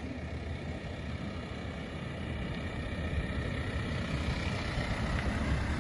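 An engine running steadily, growing a little louder toward the end.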